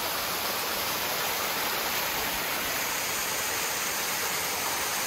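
Small waterfall rushing: a steady, even sound of falling water.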